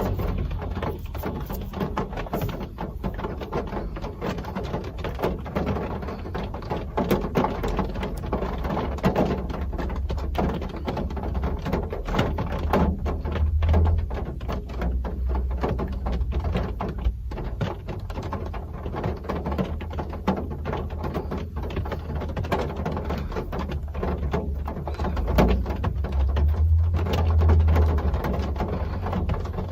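Real rain falling: a steady patter of many small drops over a low rumble that swells around the middle and again near the end.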